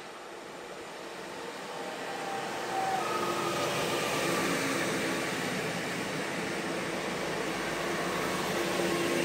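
Multiple-unit passenger train passing close by on the track: a rising rumble and rush of wheels on rail that grows for about three seconds, then stays loud, with whining tones from the running gear that fall slightly in pitch as it goes by.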